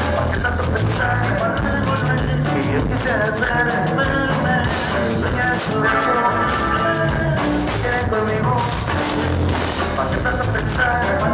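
Live norteño band playing an instrumental passage: button accordion lead over acoustic guitar and drum kit, with a steady beat.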